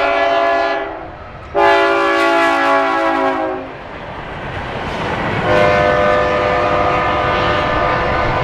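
Diesel locomotive air horn sounding as a GE AC44CW passes close: a blast that fades out about a second in, then a loud second blast whose lower notes drop in pitch as the locomotive goes by. After it come the rumble of the locomotive and the loaded rail cars rolling past, with another steady chord of tones from about five and a half seconds in.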